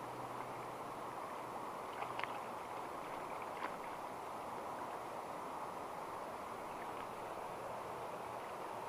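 Steady rush of a fast-flowing river current. A few short splashes come about two seconds in and again a little later, as a landing net is worked through the water around a hooked trout.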